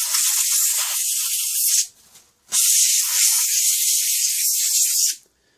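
Can of compressed air (air duster) spraying in two long hissing blasts, blowing dust out of a graphics card's cooler and air vents. The first blast stops about two seconds in; the second starts half a second later and stops shortly before the end.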